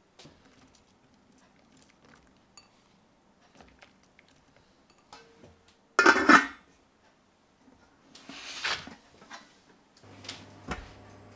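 A stainless steel lid set down onto a stainless steel pot with a loud metallic clank about six seconds in, after a few faint light ticks. A rougher scraping sound follows as the pot is moved, and a low steady hum starts near the end.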